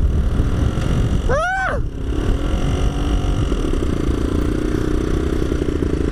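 Yamaha F1ZR's two-stroke engine running hard at road speed under heavy wind rush on the microphone, with a short rising-and-falling whoop about a second and a half in.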